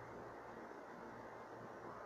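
Faint, steady background hiss with a slight low hum: the recording's room tone, with no distinct sound events.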